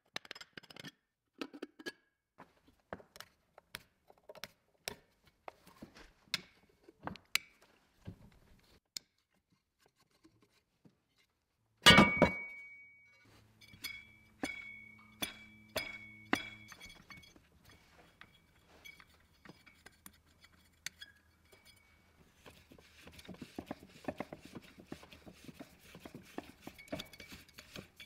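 Metal parts and tools clinking and tapping as a 1914 F. Bissell vacuum-grinder is taken apart. About midway there is one loud metal clang that rings on, followed by a few more clinks, and near the end a dense, fast rattling.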